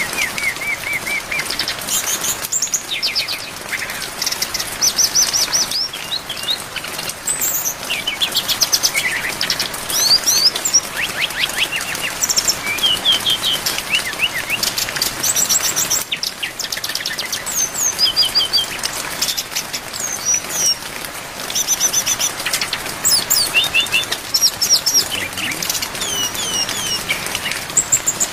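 Brown-chested jungle flycatcher (sikatan rimba dada coklat) singing a fast, varied song of high chirps and trills in short phrases, over a steady hiss of rain.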